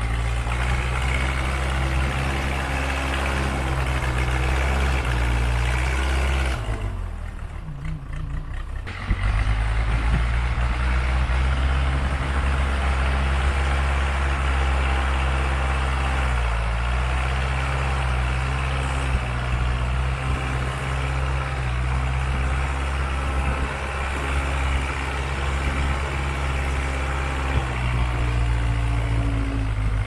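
Case 580C backhoe-loader's engine running under load as the machine works back and forth, pushing dirt with its front loader bucket. The engine sags to a lower, quieter note about seven seconds in and picks back up with a knock around nine seconds, then dips briefly again near sixteen seconds.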